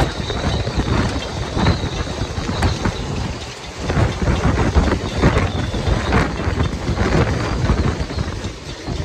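Hurricane-force wind gusting across a marina of moored sailboats and buffeting the microphone, a heavy uneven rumble with a faint high whistle at times. The gust eases briefly about three and a half seconds in, then comes back harder.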